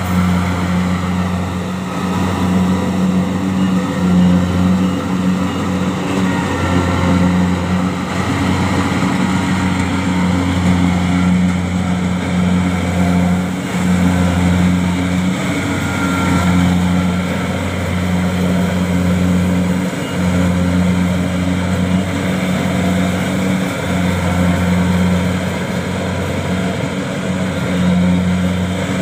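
Kubota DC-70 Plus rice combine harvester's diesel engine running steadily under load as it harvests in deep mud, a continuous low drone.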